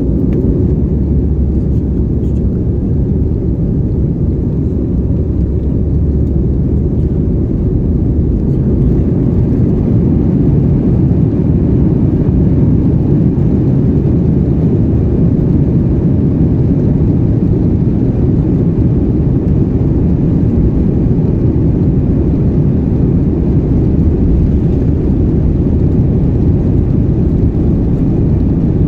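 Jet airliner's engines running at low taxi power, heard inside the passenger cabin as a steady low rumble.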